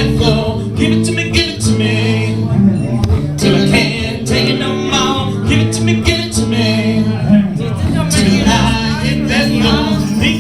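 Live acoustic music: strummed acoustic guitar with a voice singing over it.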